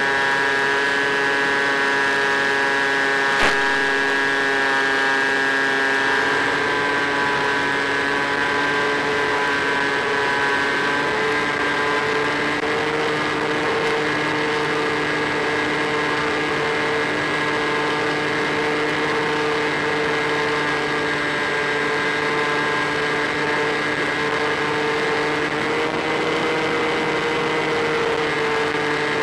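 Electric motor and propeller of an EasyStar RC plane picked up by the onboard camera: a steady whine that steps up slightly in pitch a few times as the throttle changes, with a single sharp click a few seconds in.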